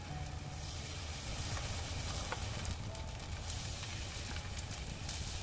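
Small spoonfuls of thin batter sizzling as they fry in an oiled non-stick frying pan over low heat, with a few light clicks of a metal spoon against the pan.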